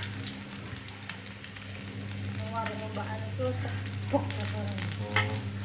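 Salted fish frying in a little oil in a wok over a low flame, with a steady fine sizzle and crackle. A metal spatula clicks sharply against the wok twice near the end.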